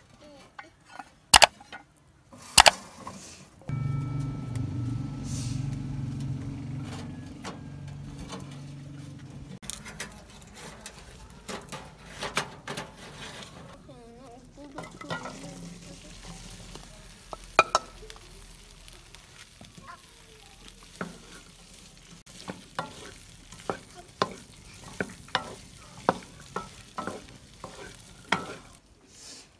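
Chopped okra frying in hot oil in a metal pan, sizzling while a wooden spatula stirs it and knocks against the pan's sides in many short clicks. Two sharp metal clanks come about a second in, and a low hum runs for several seconds before the stirring starts.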